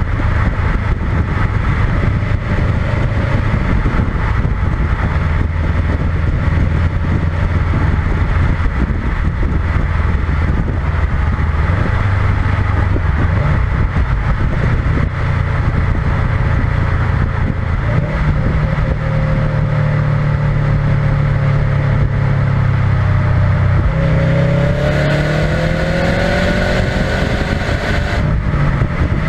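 Subaru WRX STI's turbocharged flat-four engine running through its stock exhaust while the car cruises, heard from under the car with road and wind noise. The engine note holds steady, then rises in pitch near the end as the car accelerates.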